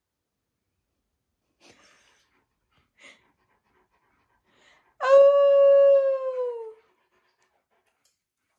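An Alaskan Malamute howls once about five seconds in. The howl is held for nearly two seconds and slides down in pitch at the end. A couple of faint, short noises come before it.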